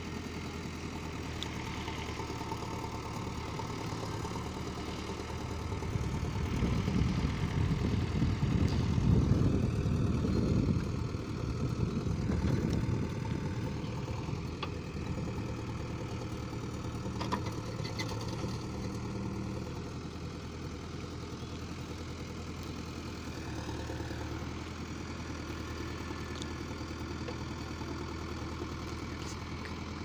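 JCB 3DX backhoe loader's diesel engine running as the backhoe arm digs soil and swings it over to a tractor trolley. The engine grows louder for several seconds in the first half while the arm works, then settles back to a steady run.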